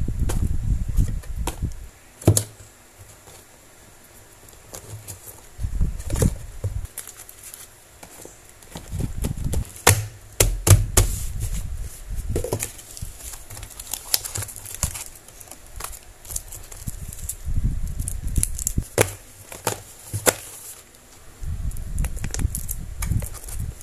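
Hands packing a small cardboard box: cellophane-sleeved sticker sheets and snack packets crinkling and rustling, with scattered sharp taps and clicks as items are set down. Recurring low bumps of hands and box against the table.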